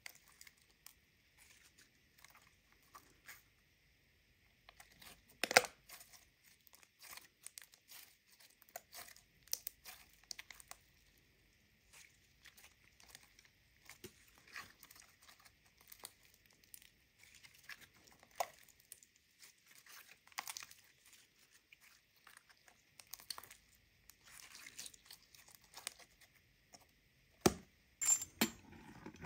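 Sticky slime being squeezed, stretched and pulled apart by hand, giving irregular crackles and small pops with quiet gaps between. There is a sharp snap about five seconds in and another near the end.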